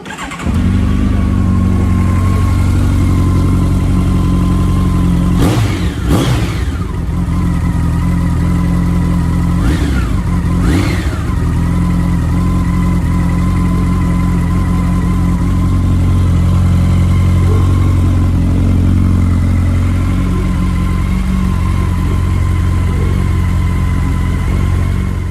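Honda CB1300SF's inline-four motorcycle engine running, with two brief revs about six and ten seconds in.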